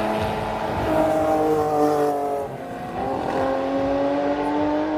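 Race car engines at speed on the circuit: one engine note held for about two seconds, a brief dip, then another car's engine note slowly rising in pitch as it accelerates.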